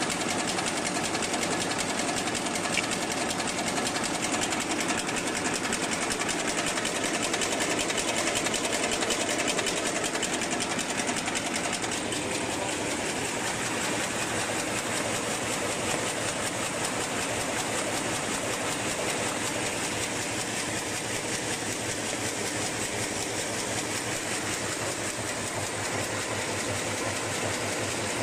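LSD-400B automatic high-speed paper bag making machine running: a fast, steady mechanical clatter.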